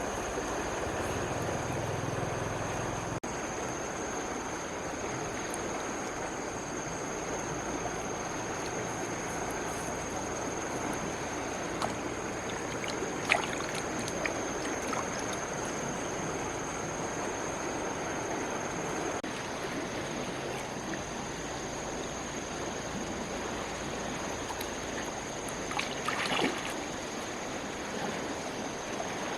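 Water rushing steadily, with a few sharper splashes about halfway through and again near the end. A thin, steady high-pitched tone runs throughout.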